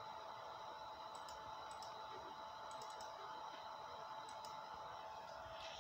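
Faint steady whine of the rotary unit's energized 57 mm stepper motors, with a few soft, sharp clicks scattered through it.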